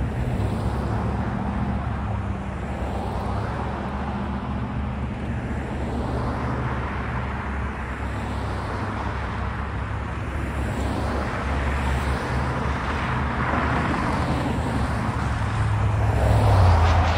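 Road traffic on a highway: cars passing one after another, their tyre and engine noise swelling and fading with each pass, the loudest pass near the end.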